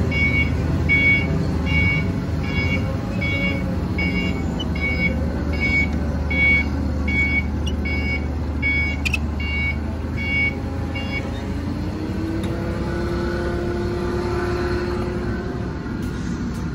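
Forklift engine running with its reverse backup alarm beeping evenly, about every three-quarters of a second, the sign that it is backing up. The beeping stops about eleven seconds in and the engine note rises and holds.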